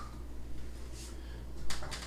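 Dry-erase marker strokes scratching on a whiteboard: a faint one about a second in and a louder, sharper one a little before the end, over a steady low hum.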